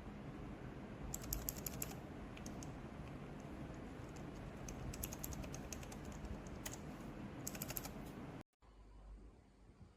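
Typing on a mechanical keyboard fitted with Outemu Lime silent tactile switches: quick runs of soft keystroke clicks in several short bursts over a steady low background hum. The sound cuts out briefly about eight and a half seconds in, and the background is quieter after that.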